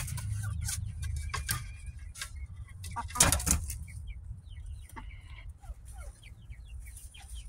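Silkie chickens clucking softly in short scattered calls. A few sharp rustling knocks come from the birds moving in the coop, the loudest about three seconds in.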